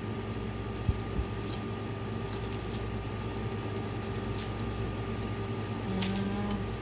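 Steady hum of a running household appliance with a thin steady tone through it, and a few light clicks of jewelry being handled.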